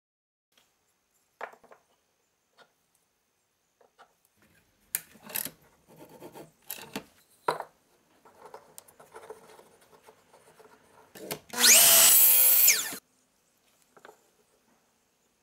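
Wooden blocks knocked and slid into place against a miter saw fence. About eleven seconds in, the sliding miter saw's motor spins up and runs for under two seconds as the blade cuts a kerf into the wood block, then cuts off.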